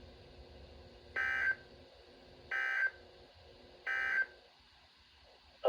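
NOAA Weather Radio's Emergency Alert System end-of-message code: three short bursts of SAME digital data tones, evenly spaced about a second and a half apart, signalling that the severe thunderstorm warning message has ended.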